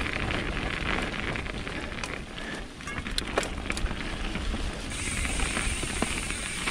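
Mountain bike rolling along a damp dirt trail: steady tyre noise over the ground with scattered sharp clicks and rattles from the bike. The noise gets brighter about five seconds in.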